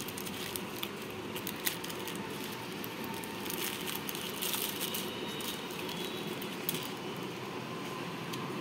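Crinkling and rustling of a small plastic packet being opened by hand, with scattered light clicks, over a steady background hum.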